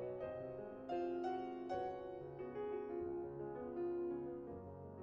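Soft background piano music: single notes and chords picked out at an unhurried pace.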